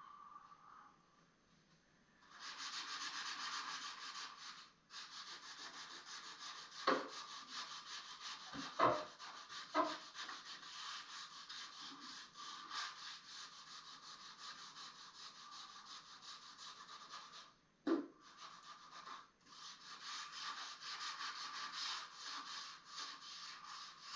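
Sandpaper rubbed by hand over an old wooden fireplace mantel to take off old paint, in quick back-and-forth strokes. Short pauses break the strokes, and a few knocks on the wood come through.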